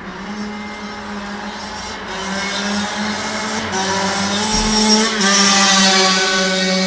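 Motocross bike engine running as the bike rides past along the street, growing louder to a peak about five seconds in, then easing off slightly.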